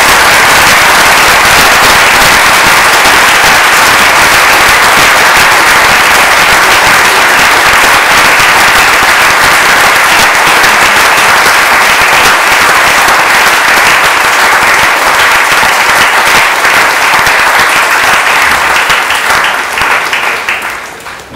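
Audience applauding, a long steady round of clapping that dies away near the end.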